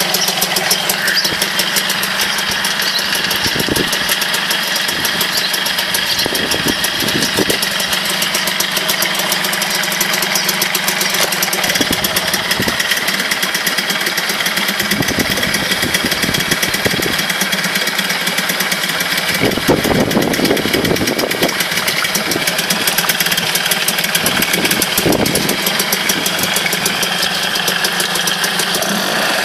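Tohatsu 5 hp two-stroke outboard motor running steadily in a test barrel, its propeller churning the water to foam.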